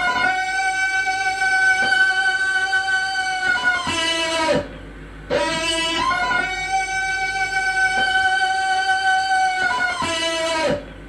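A Tarzan jungle-yell sound effect played twice: each a long held cry about four and a half seconds long that swoops up, holds one pitch and drops away at the end, with a short break between the two.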